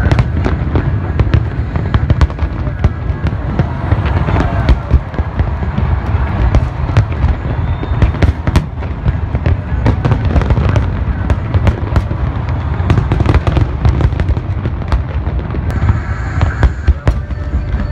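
Large harbour fireworks display: shells bursting in rapid succession, many sharp bangs and crackles over a continuous low rumble.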